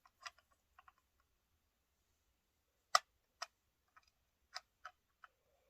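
Plastic Lego pieces clicking and snapping as they are handled and pressed together: a run of short, sharp clicks, faint at first and louder from about three seconds in.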